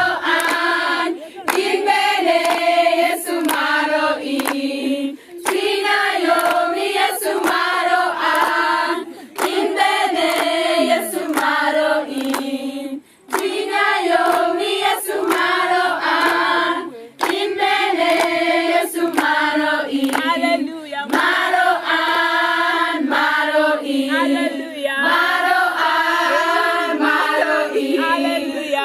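A group of female voices singing together in unison, a chant-like song in short repeated phrases, with hand claps.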